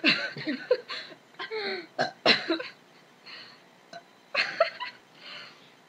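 A person making several short vocal sounds in spurts, with short pauses between them.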